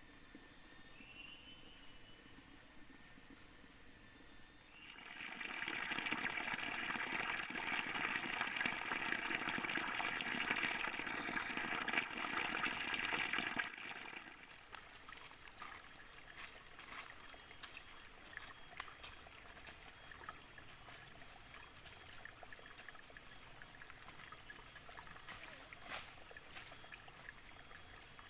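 Running water, loud for about nine seconds starting about five seconds in, then cutting down sharply to a faint background with steady high-pitched tones and a few light ticks.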